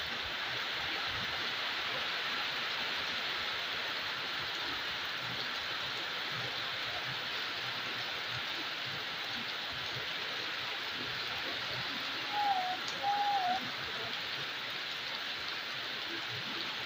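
Heavy rain pouring onto a street, roofs and puddled road, a steady even rush. About three-quarters of the way through, a brief wavering call sounds twice over the rain.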